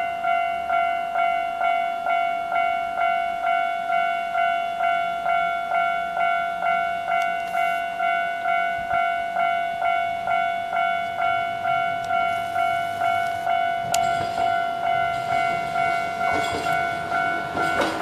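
Japanese level-crossing warning bell ringing steadily at about two strikes a second. From about 14 seconds in, the running noise of an approaching Enshu Railway 1000-series electric train grows beneath it.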